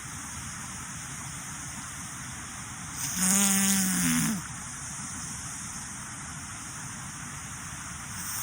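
A woman's sneeze: one voiced cry of about a second, a few seconds in, over the steady rush of a waterfall. She puts her sneezing down to tree pollen.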